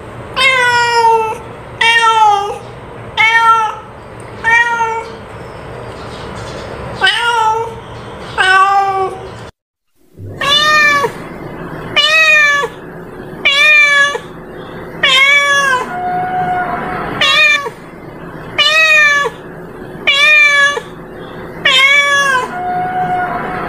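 Domestic cat meowing over and over, short calls about one a second, each rising and then falling in pitch, with a brief silent break about nine and a half seconds in.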